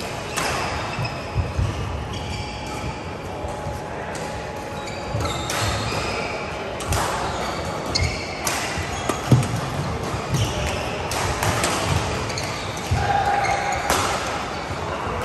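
Badminton play in a large echoing hall: sharp racket strikes on the shuttlecock and thuds of footfalls at irregular intervals, with short high squeaks of court shoes.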